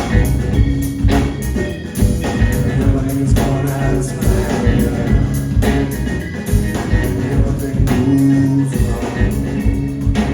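Live rock band playing an instrumental stretch: a steady drum-kit beat over a low, sustained bass line with guitar.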